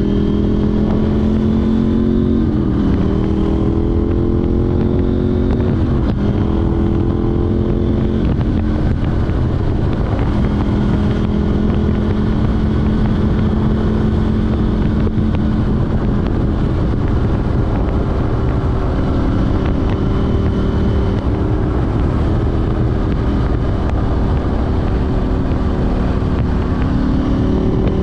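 KTM 790 Duke's parallel-twin engine running through an Arrow Race Tech exhaust with a de-cat pipe while riding. The pitch climbs under acceleration and drops back at gear changes several times, holding steady for a stretch mid-way before climbing again near the end.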